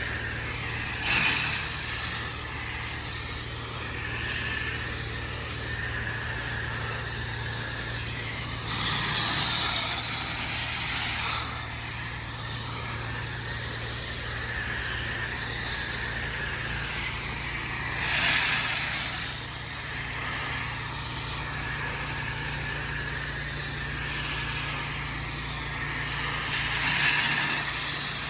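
Pressure washer engine running steadily under the hiss of the high-pressure water spray, the hiss swelling louder now and then, about four times.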